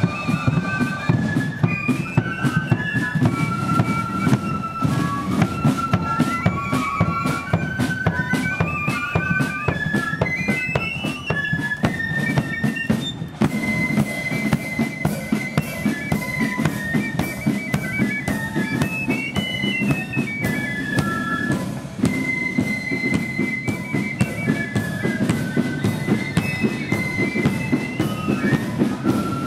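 Marching flute band playing a tune: a high flute melody over steady side drums, a bass drum and cymbals. The music changes abruptly about halfway through.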